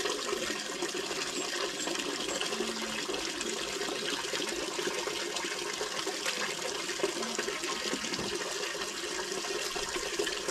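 Steady running water with wet splashing as a dog is soaped and washed by hand.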